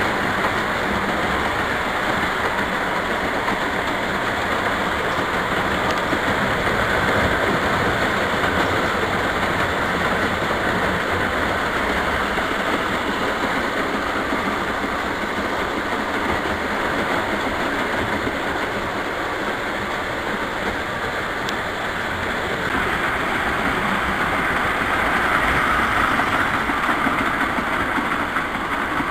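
O gauge three-rail model train running steadily on its track: a continuous whir and rumble of the motor and wheels on the rails, growing a little louder near the end.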